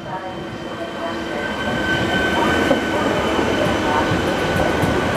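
ČD InterPanter (class 660) electric multiple unit running past, its wheels rumbling on the rails under a steady high whine, growing louder as the cars go by.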